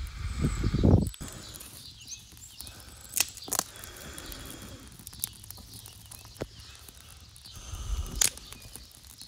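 Small freshly lit twig-and-birch-bark campfire crackling, with a few sharp pops from the burning sticks. Low rumbling gusts in the first second and again near the end.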